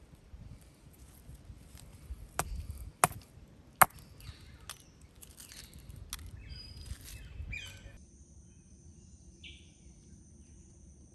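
Hand-held hammerstone striking a flat stone anvil: three sharp knocks about a second apart. These are followed by lighter clicking and rustling of small stony pieces being handled. From about eight seconds in, a steady high insect drone takes over.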